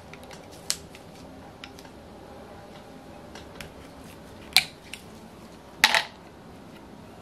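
Small metal clicks and clinks of a hex driver and tiny screws being handled on the cylinder head of an OS FF-240 Pegasus model engine. A few light ticks are followed by a sharper click about four and a half seconds in and the loudest clink about six seconds in.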